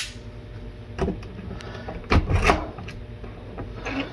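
Clicks and metallic rattling from a stiletto knife whose blade is cut into a key, handled and worked into a door's deadbolt lock. There is a sharp click at the start, another about a second in, and the loudest clatter about two seconds in.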